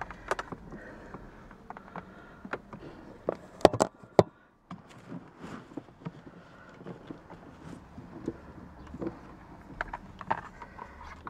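Handling noise from a laptop and its diagnostic cable being moved about inside a car cabin: scattered clicks and knocks, with the sharpest, loudest few clicks close together about three and a half to four seconds in.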